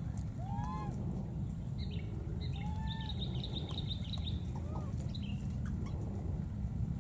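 Birds chirping and calling: a few short arching whistles, scattered chirps, and a fast high trill a few seconds in, over a steady low rumble.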